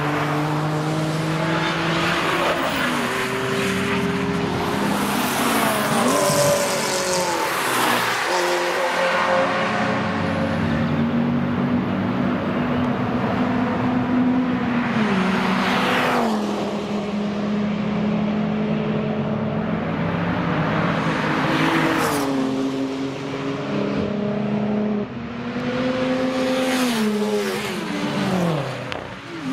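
Cars and motorcycles passing one after another at speed, their engines stepping in pitch through gear changes and dropping in pitch as each one goes by.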